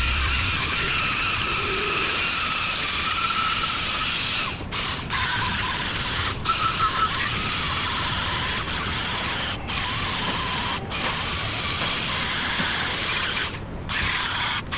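A handheld power tool running steadily, with a faint wavering whine, stopping briefly about five times, typical of cleaning an engine's water pump mounting surface.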